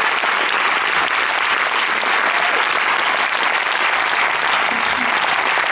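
Audience applauding, with a steady, even clapping that holds at the same level throughout.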